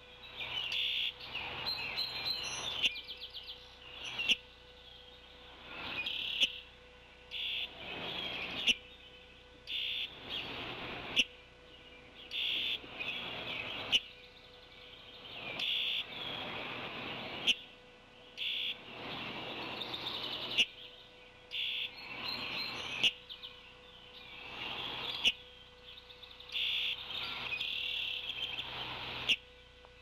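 Songbirds calling repeatedly from the surrounding trees, a new call every couple of seconds, each starting with a sharp note.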